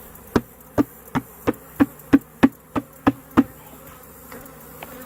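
Honey bees buzzing around open hives, with a quick run of about ten sharp, evenly spaced knocks, roughly three a second, that stops about three and a half seconds in.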